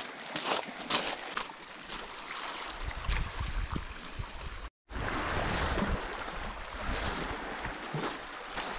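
Wind buffeting the microphone over small lake waves lapping on a pebble shore. In the first couple of seconds there are sharp crunches, like footsteps on the pebbles. The sound cuts out for a moment about halfway through, then the wind and water noise carry on.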